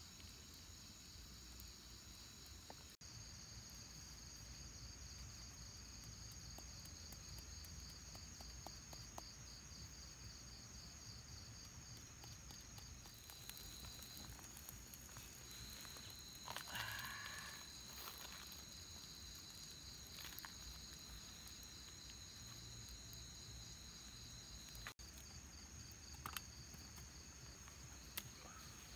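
Night insects chirping in a steady, high-pitched, fast-pulsing chorus. About halfway through, a louder wavering call lasts a second or two, and a few faint clicks come near the end.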